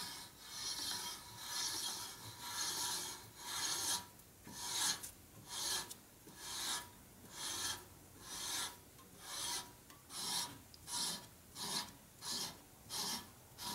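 Hand reamer rasping through a worn metal bore wet with cutting oil, in repeated scraping strokes at about one and a half a second, quickening to about two a second after four seconds. It is cutting metal away to make a bore that has worn oval round again.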